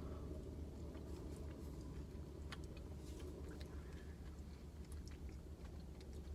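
Faint eating sounds: spoon clicks and chewing of a cookie dough Blizzard, over a steady low hum.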